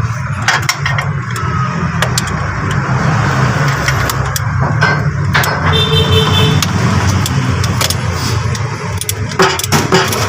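Metal tools clinking and knocking while the starter motor's mounting bolts are undone, over the steady low hum of a running engine. A brief high-pitched squeal comes about six seconds in.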